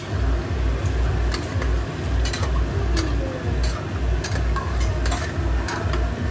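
Steel ladle stirring a boiling mutton curry in an aluminium pressure cooker, clinking and scraping against the pot at irregular moments. A low thudding pulse, about three a second, runs underneath.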